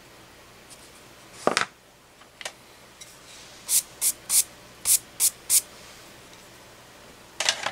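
A knock about a second and a half in, then six quick, hissy strokes of a dusting brush sweeping eraser crumbs off drawing paper.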